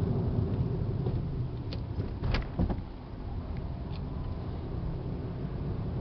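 Car driving, heard from inside the cabin: a steady low rumble of road noise, with a few brief knocks about two seconds in.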